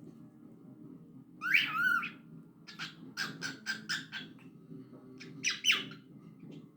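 Pet cockatiel whistling and chirping: a gliding whistle about a second and a half in, then a quick run of about eight short chirps, and two louder calls near the end, over a steady low hum.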